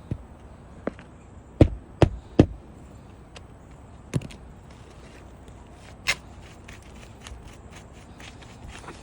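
Sharp knocks on a shingle roof: three loud strikes in quick succession about two seconds in, single knocks before and after, then scattered faint taps and clicks.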